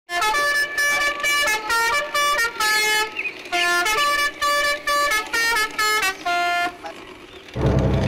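A musical horn playing a quick tune of about fifteen short, buzzy notes that jump between pitches, in the manner of a melody truck horn. Music comes in near the end.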